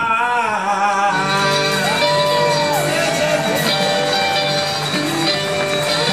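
Live band playing an upbeat rock-and-roll number, led by a strummed acoustic guitar, with a man singing into the microphone.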